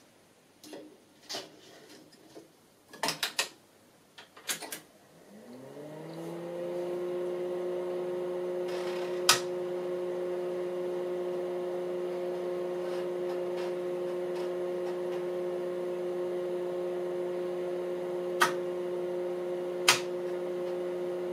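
A 5.25-inch floppy disk going into the HP 4145A Semiconductor Parameter Analyzer's drive, with a few clicks and knocks as the drive door is latched. About five seconds in, a whirring hum rises in pitch over about a second and then holds steady as the analyzer boots from the disk, with three single sharp clicks over it.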